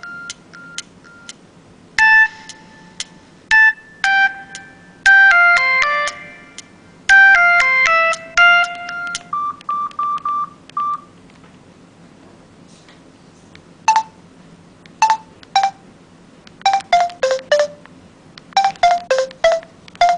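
Samsung mobile phone keypad tones: number keys pressed one at a time, each giving a short pitched beep, picking out the notes of a Samsung ringtone melody. The beeps come in quick groups, with a pause of about three seconds partway through.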